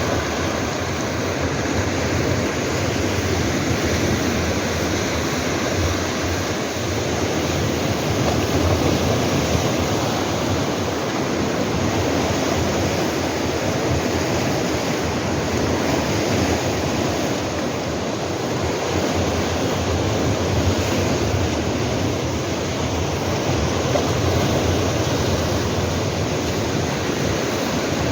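Sea waves washing against rocky shore rocks, a steady surf noise that swells and eases gently, with some wind on the microphone.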